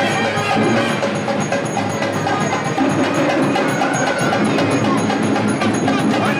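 Temple procession music: bells and percussion struck in a quick, steady rhythm, ringing on, with a wavering melody line over them.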